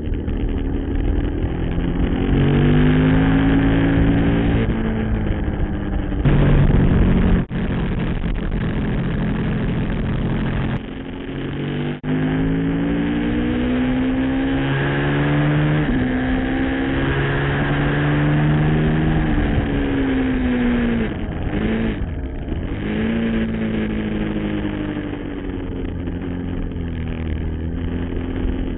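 Motorcycle engine at racing speed, heard from an onboard camera: the pitch climbs again and again, dropping back at each gear change, then falls through a downshift about two-thirds of the way through before climbing once more. Steady wind rush sounds behind it.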